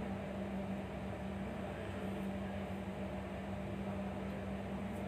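Steady background hum with an even hiss, a low constant tone under a faint noise floor, from the recording microphone's surroundings.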